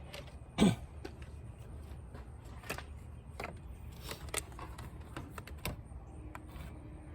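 Light clicks and knocks of a multimeter and its probes being handled while setting up to measure a car battery's voltage. One louder knock comes about half a second in, then lighter scattered clicks.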